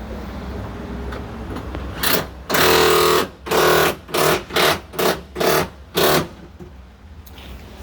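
Pneumatic impact wrench rattling in a string of about seven short bursts, the first the longest, as bolts are run down: retightening the front subframe bolts with the car's weight on its wheels, so the suspension is not left in a bind.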